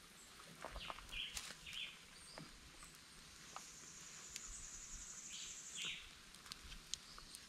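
Faint outdoor ambience of a wooded clearing: a few short bird chirps, and a high insect buzz that starts about three and a half seconds in and stops about six seconds in, with scattered small clicks.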